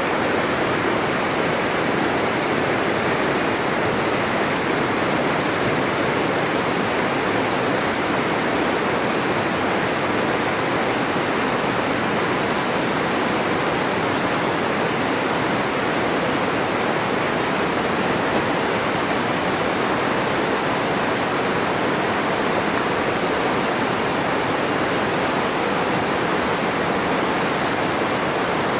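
Whitewater river rapids rushing, a steady, unbroken noise of water.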